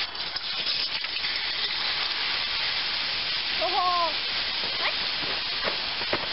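Steady hiss from a homemade pulsejet rig whose engine is not firing, with no pulsing drone. About two thirds of the way through, a brief rising-then-falling call sounds once over the hiss.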